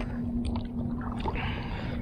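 Lake water sloshing and splashing close to the microphone around a wading angler, over a low rumble and a steady low hum, with a brief splashier patch a little over a second in.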